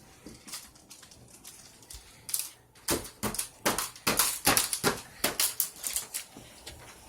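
Hard plastic toys clacking and knocking together in a quick, irregular run of sharp clicks, thickest in the middle of the stretch.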